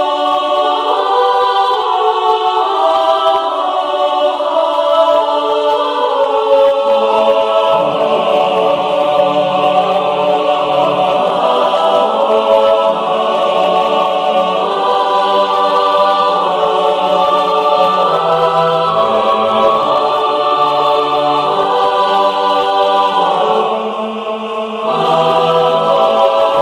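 Angelic choir sound effect: wordless voices sing sustained, shifting chords, with a lower part coming in about seven seconds in and a short dip in level near the end.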